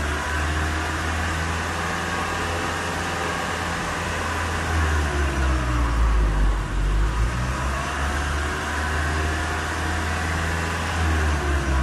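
Lexus IS 300h's factory exhaust with its 2.5-litre four-cylinder engine running, a steady low drone whose pitch drifts up and down a little, a bit louder around the middle and near the end.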